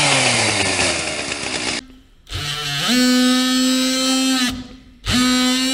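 A DeWalt 20V brushless oscillating multi-tool makes two short cuts through a rubber end cap. Each cut spins up quickly to a steady high buzz and then stops. It opens with a falling, sliding sound that stops about two seconds in.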